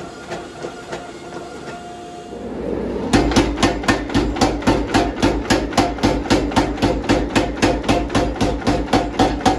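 A mechanical power hammer with a motor-driven flywheel pounding a glowing 160-layer pattern-welded steel billet at about four blows a second, drawing it out toward flat bar stock. The hammering starts about three seconds in, after a steady machine hum with faint ticking.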